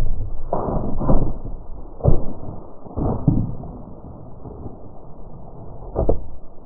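Low rumbling noise on the microphone with about five dull thumps, the loudest in the first three seconds, then quieter rumble.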